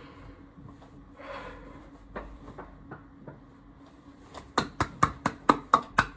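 Hand clapping: a few scattered claps, then about eight quick, even claps over the last second and a half.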